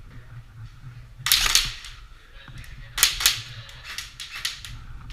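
Airsoft guns firing short rapid bursts of shots: one burst about a second in and another about three seconds in.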